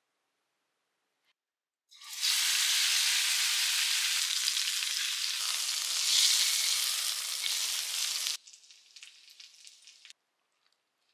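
A tied roll of rumen (beef tripe) sizzling as it fries in hot oil in a pan. The sizzle starts about two seconds in and cuts off suddenly after about eight seconds, leaving a faint crackle for a couple of seconds more.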